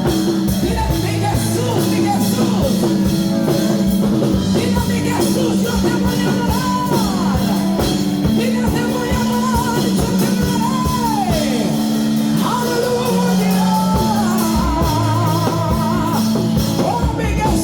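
Live worship music: a band with drums and steady sustained chords, and a woman singing long, wavering, gliding vocal lines over it.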